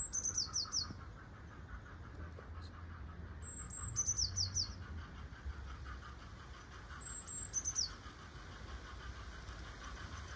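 Blue tit singing: three short phrases about three and a half seconds apart, each a high thin note followed by a quick run of about four lower, falling notes. Underneath, a model train's wheels make a faint rhythmic rattle on the track, growing near the end.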